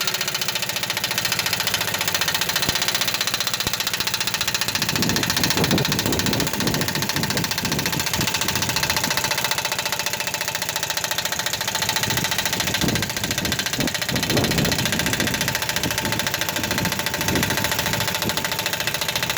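Air-powered impact wrench hammering steadily for a long stretch, a fast, even rattle that starts and stops abruptly.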